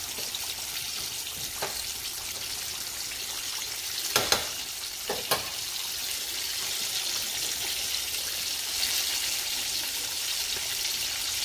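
Whole breaded catfish frying in hot oil in a stainless steel pan: a steady sizzling hiss. A few sharp clacks come about four to five seconds in as the metal tongs are set down on the stovetop.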